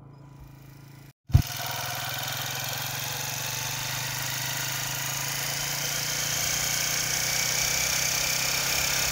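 A vehicle engine running steadily under a strong wind-like hiss, growing slowly louder. A short thump comes about a second in, where the sound cuts in.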